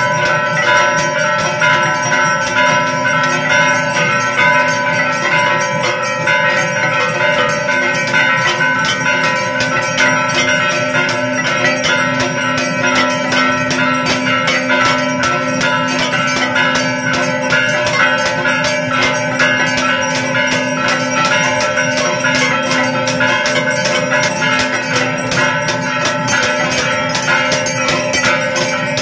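Brass temple bells rung rapidly and without a break for the aarti, including the handbell swung by the priest, the quick strokes merging into a steady, many-toned ringing.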